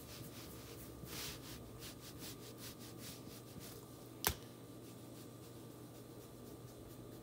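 Paintbrush dabbing and stroking paint onto small cutout pieces: faint, repeated short scratchy strokes, with one sharp click a little after four seconds in.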